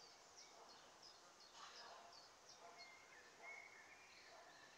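Near silence with faint birdsong: a quick run of short, high chirps in the first half, then a longer whistled note.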